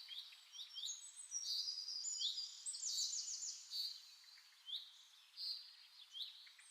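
Small birds chirping and twittering: a steady stream of quick, downward-sweeping chirps and short trills, several birds calling over one another.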